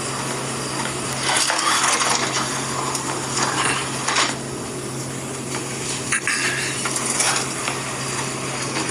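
Clinking and clattering sounds, repeated irregularly over a steady low hum.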